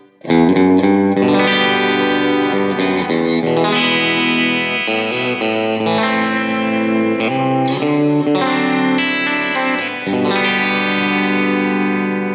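Electric guitar played with distortion, a run of held chords and notes that change several times; a last chord struck about ten seconds in rings out and fades near the end.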